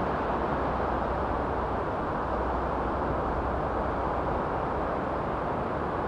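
Steady wash of sea surf on a beach, an even rushing noise with a low rumble beneath it and no single waves standing out.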